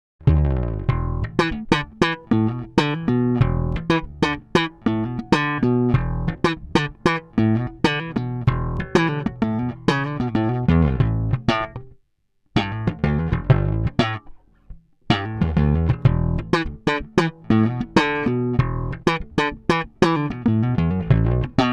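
1966 Fender Precision Bass with a Brazilian rosewood fingerboard, recorded dry through a DI with no amp or effects, playing a busy line of plucked notes, several a second. The playing stops briefly a little past halfway and again soon after before picking back up.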